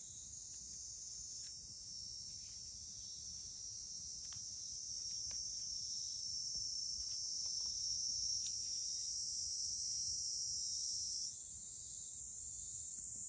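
Insects shrilling in a steady, high-pitched chorus that grows louder, its pitch shifting a little about a second and a half in and again near the end.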